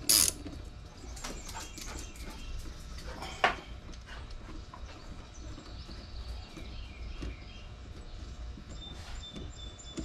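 A ratchet wrench on a lawnmower's blade bolt: one loud ratcheting stroke at the start and a sharp click about three and a half seconds in, then faint scattered light clicks as the loosened bolt is worked out by hand.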